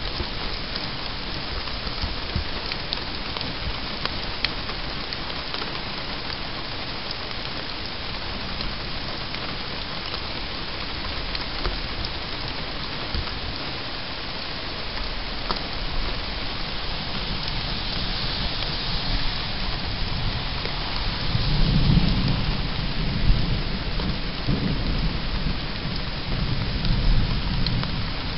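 Steady rain falling and pattering on surfaces, with thunder rolling in about twenty seconds in as a deep rumble that swells several times until near the end.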